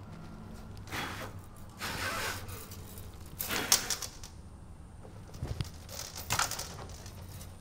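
A marker and tape measure scraping against a wall in about five short scratchy strokes, the loudest about halfway through, with a low thump a little later.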